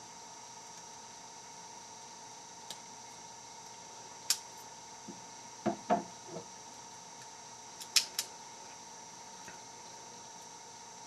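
Small, sharp metallic clicks and taps from a lock pick and tension wrench working the pin tumblers of a lock during single pin picking, with a few softer knocks around the middle. A faint steady whine runs underneath.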